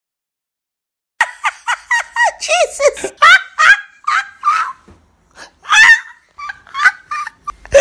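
A singer's voice, unaccompanied, making a run of short squawking, bird-like yelps that bend up and down in pitch. They start about a second in after a moment of silence and come in quick, uneven bunches.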